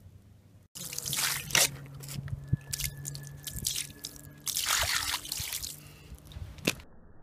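Water poured from a bowl splashing onto a water-repellent-coated canvas sneaker and running off onto asphalt, in two bursts of splashing with drips between.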